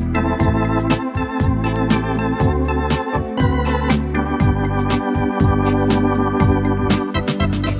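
Organ music: chords held over a moving bass line, with many sharp note attacks.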